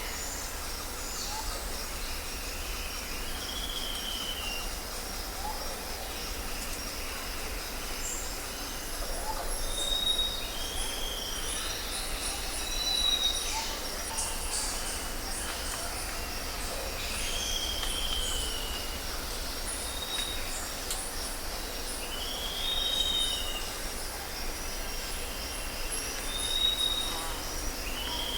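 Birds calling with short whistled phrases every few seconds over a steady high-pitched chorus of chirping insects.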